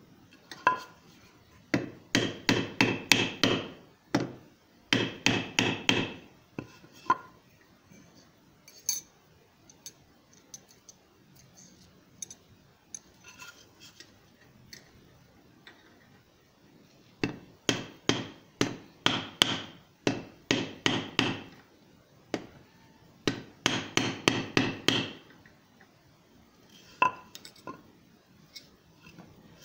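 Light hand-hammer blows on a blacksmith's anvil, forging a small copper snake. The blows come in quick runs of about four or five a second, four runs with pauses between them, and the anvil rings under each run. A few single taps fall in the pauses.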